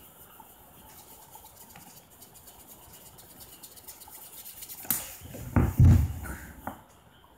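Faint dry rubbing of a fist twisted against an open palm, then about five seconds in a body falling backward onto a wooden floor: a sharp knock, two heavy thumps, and a last lighter knock.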